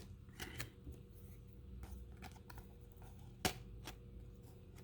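Faint handling noise of a Dim card being taken out of its packaging: scattered light clicks and taps, with one sharper click about three and a half seconds in.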